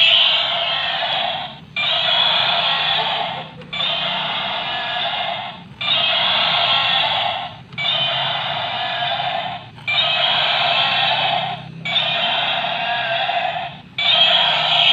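Battery-powered walking stegosaurus toy playing its electronic roar sound through a small built-in speaker, tinny and repeated over and over: eight calls of under two seconds each, separated by short gaps.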